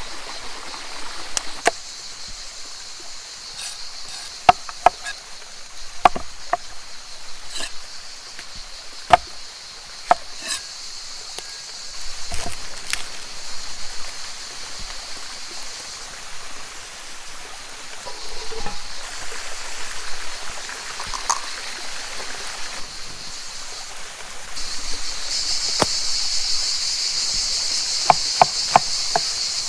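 Steady high-pitched insect chorus, louder from about 25 seconds in, with scattered sharp knocks and clicks.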